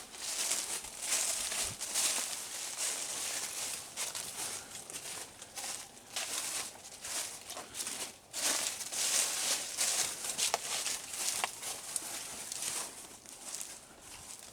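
Footsteps crunching and rustling through leaf litter, in an uneven walking rhythm of roughly one to two steps a second.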